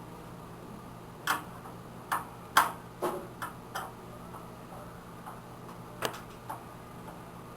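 Irregular light clicks and taps, about ten in all with the loudest a little over two seconds in, from hands and tools working on a desktop computer case as its power supply is unscrewed and taken out. A low steady hum runs underneath.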